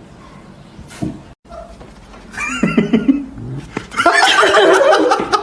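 An animal's pitched, wavering cries, beginning about two seconds in and getting louder and more continuous over the last second and a half.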